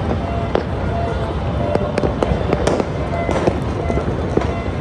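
Many fireworks bursting at once: a dense, continuous run of bangs and crackles over a steady low rumble.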